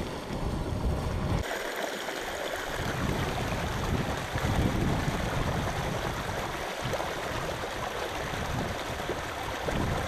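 Rushing water: a thermal spring welling up out of the ground and churning in its pool, then its runoff flowing in a shallow stream. The sound changes abruptly a little over a second in, then runs on steadily.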